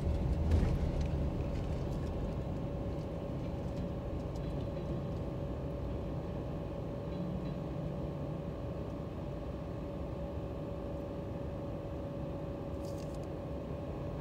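Freight train rolling away on the rails: the rumble of the cars fades over the first few seconds, then holds low and steady, with a faint steady whine above it.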